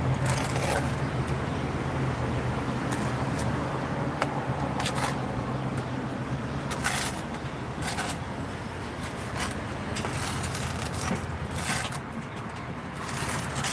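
Scattered short scrapes and clicks of a natural sandstone piece being worked into place, over a steady low hum.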